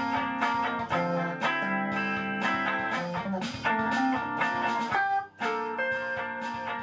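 Background music led by plucked guitar, with notes changing in a steady rhythm and a short break a little after five seconds in.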